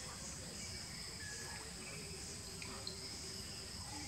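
Steady high-pitched chorus of insects, faintly pulsing, with a few faint short whistled notes over it.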